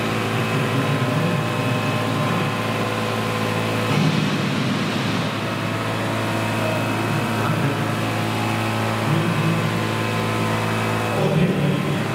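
Electric scale model CH-47 Chinook helicopter flying, its tandem rotors and electric motors making a steady hum of many tones. The hum swells briefly about four seconds in and again near the end.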